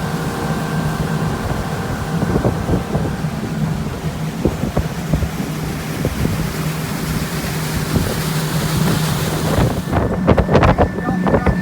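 A pontoon boat's motor running at a steady low hum, with wind rushing over the microphone. Near the end the wind gets gustier and buffets the microphone with uneven knocks.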